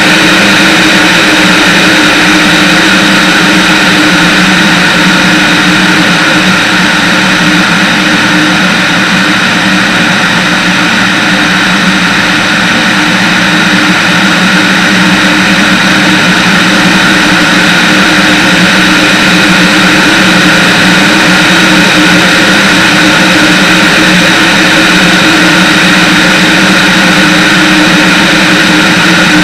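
Steady drone of a single-engine propeller plane's piston engine and propeller in cruising flight, heard loud and unchanging through an externally mounted camera with rushing air over it.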